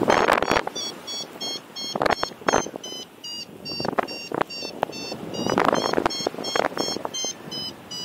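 Paragliding variometer beeping rapidly, about four short high beeps a second, signalling a climb in a thermal. Gusts of wind buffet the microphone at intervals.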